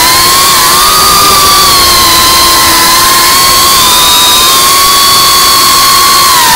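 FPV quadcopter's electric motors and propellers whining at a fairly steady throttle, the pitch wavering slightly up and down, over a rush of wind noise, heard from the camera on the drone itself.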